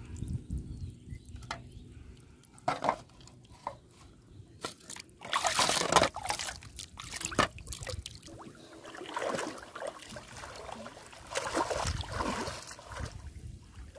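Shallow river water splashing and sloshing in irregular bursts, loudest about six seconds in, then a longer stretch of churning as someone wades waist-deep through it.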